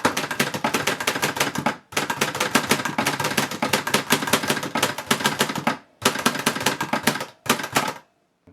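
Imperial Good Companion Model 1 manual portable typewriter being typed on, rapid keystrokes striking the platen in four runs separated by short pauses, stopping about half a second before the end.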